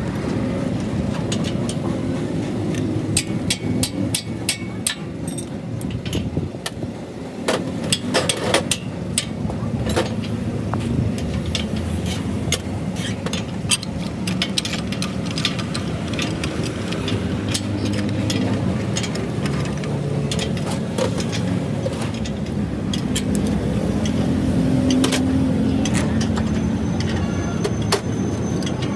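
A steady engine-like drone runs throughout, with many sharp metallic clicks and knocks of work on metal, thickest in the first half.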